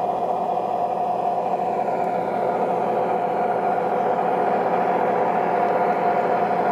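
Sampled Ludmilla diesel engine sound from the Zimo MX699 sound decoder of a PIKO G-scale BR 132 model locomotive, running steadily under way with a steady high hum, growing slightly louder as the model approaches.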